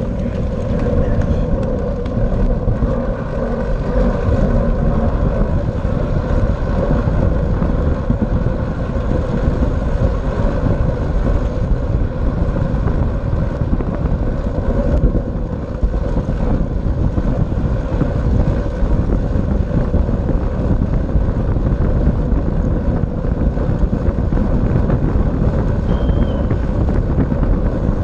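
Wind rushing over a bike-mounted camera's microphone at racing speed, over the steady rolling hum of a track bicycle's tyres and chain on the wooden velodrome boards.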